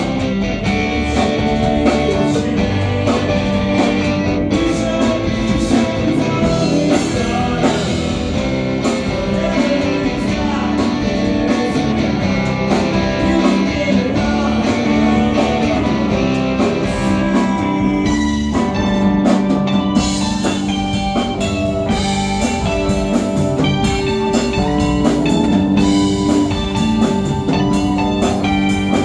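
Rock band playing live: electric guitar, bass and drum kit, with a change in the part about two-thirds of the way through.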